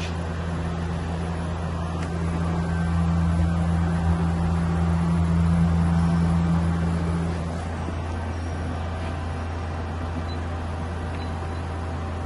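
Okuma LB3000EX CNC lathe spindle running at a steady speed during a spindle test, a low steady hum. About seven and a half seconds in, a higher tone drops out and the level falls, while a lower hum carries on.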